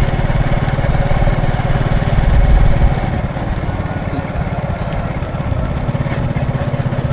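Road traffic dominated by a nearby vehicle engine running with a fast, steady low chug, which swells louder about two to three seconds in and then eases.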